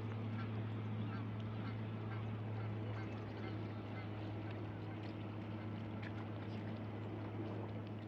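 Waterfowl calling in a run of short repeated calls, over a steady low hum that continues throughout.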